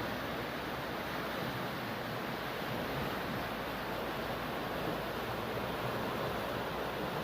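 Water rushing steadily, an even hiss that holds level without breaks.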